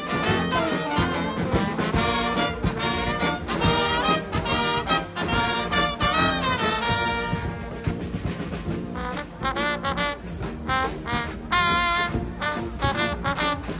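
Guggenmusik brass band playing: trumpets, trombones and tubas over bass drum and cymbal. About halfway through the horns thin out, then come back in short repeated chords.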